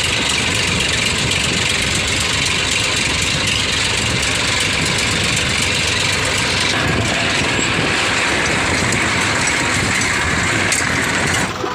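Tractor diesel engine running steadily while pulling a loaded dumper trailer, heard from the driver's seat close to the engine and exhaust.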